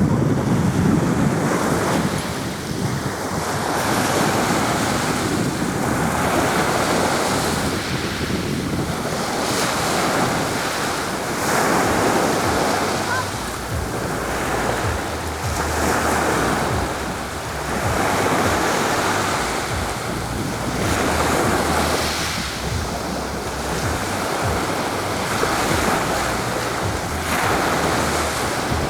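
Sea waves washing onto the shore, the surf swelling and falling back every couple of seconds, with wind buffeting the microphone.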